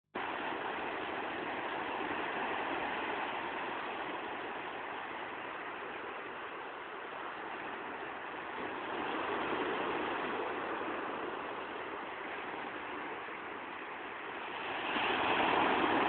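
Ocean waves breaking on the shore, a continuous wash of surf that swells louder about ten seconds in and again near the end.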